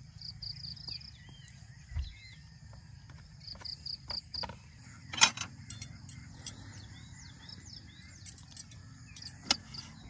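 Steady insect chirping with repeated pulsed chirps and bird calls. A low thump comes about two seconds in, and sharp clicks of tableware being handled on the wooden table follow, the loudest about halfway through and another near the end.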